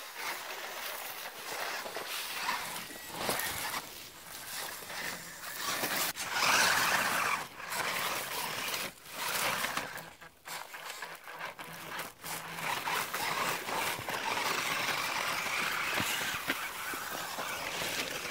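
Dry leaves and dirt crunching and rustling in irregular bursts, with scattered sharp clicks and no steady motor tone.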